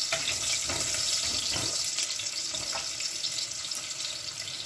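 Crushed onions, garlic and a cinnamon stick frying in hot vegetable oil in a pan: a steady sizzle, with a few soft strokes of stirring.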